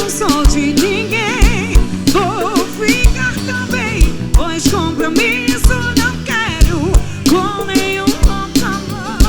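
Live forró band playing, with a wavering lead melody over bass and a steady kick drum.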